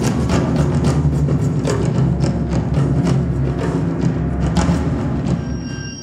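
Live stage music built on heavy drumming, with many sharp percussive strikes, several a second, over a dense low sound. It fades near the end as a few high held tones come in.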